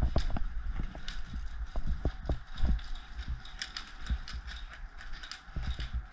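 Irregular clicks and knocks, a few each second, from an airsoft player moving with rifle and gear, over a faint steady hiss.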